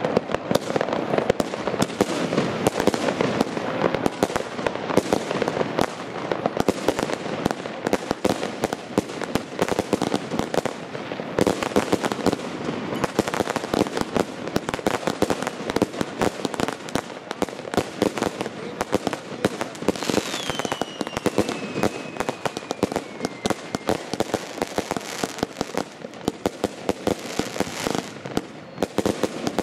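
Category II consumer fireworks going off in the air: a dense, continuous run of bangs and crackling. A falling whistle sounds about twenty seconds in.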